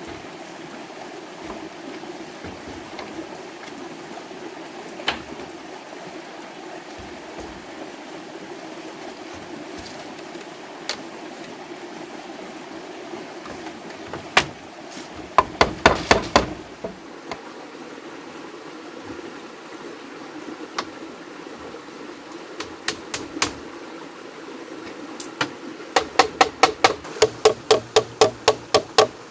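Wooden mallet knocking on a bamboo frame. A few scattered knocks come about halfway through, then a fast, even run of blows, about three a second, starts near the end. A steady rushing sound, like a stream, runs underneath.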